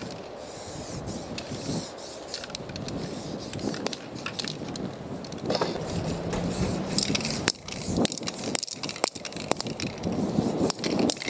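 Spray paint cans hissing in short bursts, mixed with sharp clicks and knocks of cans and stencil sheets being handled on the ground.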